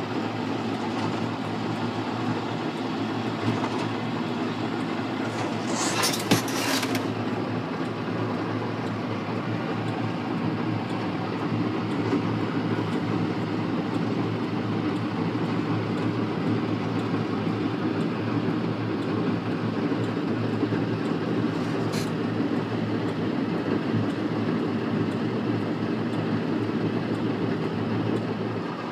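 John Deere 4055 tractor's six-cylinder diesel running steadily while pulling a John Deere 567 round baler. A brief rattling clatter comes about six seconds in, and a single sharp click later on.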